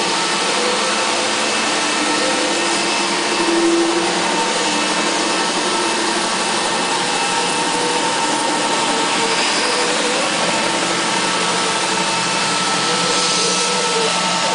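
Salla 350BTSL2 floor scrubber-dryer running steadily: the even rush of its suction motor pulling water up through the rear squeegee, with a steady whine over it.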